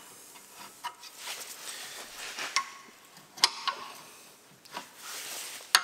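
A steel pry bar and gloved hands working a binding VW Golf rear brake caliper off its carrier: about half a dozen sharp metallic clicks and knocks at uneven intervals, the loudest near the end.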